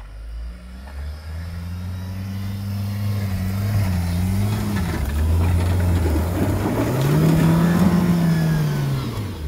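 Mahindra Thar's engine working under load as the 4x4 pushes through deep sand ruts, its revs rising and falling, swelling highest about seven to eight seconds in and dropping away near the end.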